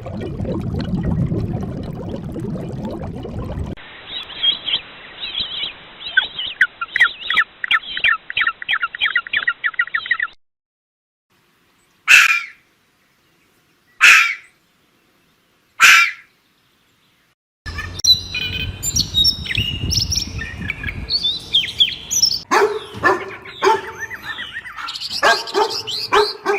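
A string of separately cut animal sound clips, mostly bird calls: rapid chirping, then three short sharp calls about two seconds apart, then a busy mix of calls.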